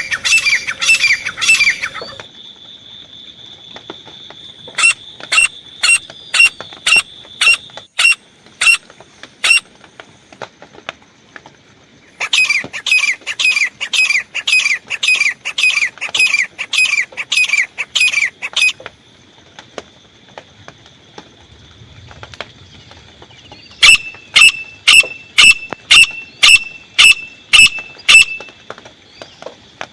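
Grey francolin (desi teetar) calling in loud bouts of sharp, repeated notes. Some bouts are fast runs and others are evenly spaced notes about two-thirds of a second apart, with pauses between them. A faint steady high whine runs underneath.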